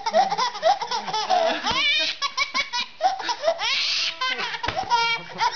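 A baby laughing in a long run of short, high-pitched bursts and squeals.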